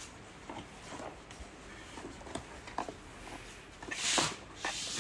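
Hands working a seat belt around a child car seat: scattered soft clicks and taps of plastic, then about four seconds in a brief sliding rasp as the belt is fed through behind the seat.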